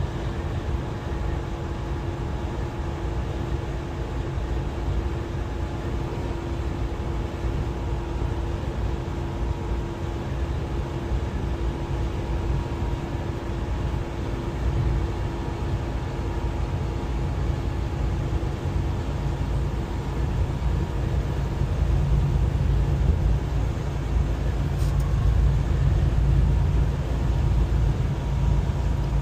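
Freightliner semi-truck cruising at about 65 mph, heard from inside the cab: a steady low drone of engine and tyres with a faint hum, getting a little louder in the last several seconds.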